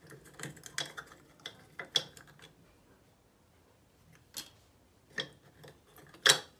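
Small clicks and knocks as fingers pick broken pieces of a shattered faucet cartridge out of a metal mixer tap body. There is a quick cluster of clicks in the first two seconds, then a few separate sharper knocks, the loudest near the end.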